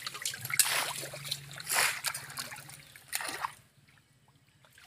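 Hands splashing and sloshing in shallow muddy water while groping for fish, a few separate splashes, dropping away to near quiet near the end.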